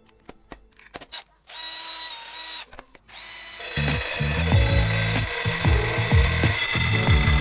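Clicks of the parts being handled, a short run of a cordless drill driving an angle-grinder gear head with no load, then, about halfway through, its toothed saw blade cutting into a wooden slat with a loud, steady, unevenly pulsing noise.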